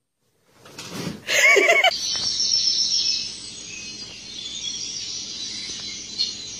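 Small birds chirping, a steady high twittering that sets in about two seconds in, preceded by a short pitched cry.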